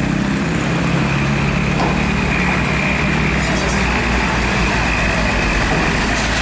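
Heavy dump truck's diesel engine running as it drives slowly past close by, its low rumble growing stronger through the second half.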